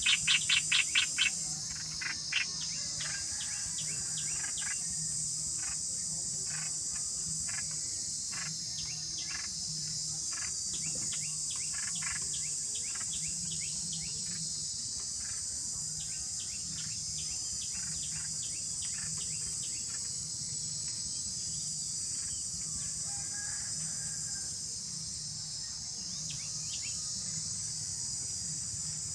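Small birds chirping in short repeated calls over a steady high drone of insects. It opens with a quick loud run of chirps, then sparser chirps follow.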